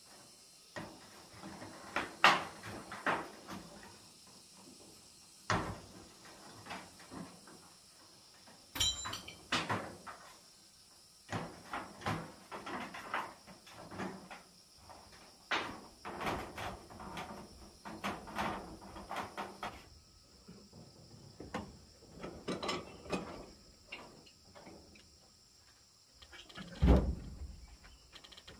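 Irregular knocks and clanks on corrugated iron roof sheeting as it is worked on by hand, coming singly and in short clusters, with a heavy low thump near the end.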